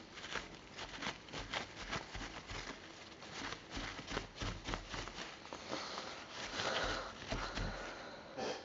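Faint, irregular small clicks, taps and rustles of close handling.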